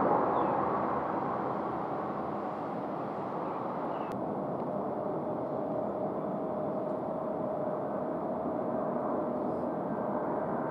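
Jet airliner engines heard from a distance: a steady roar that drops in level over the first two seconds. A faint steady whine joins about halfway through as a Boeing 757-200 comes in on final approach, and there is a single click about four seconds in.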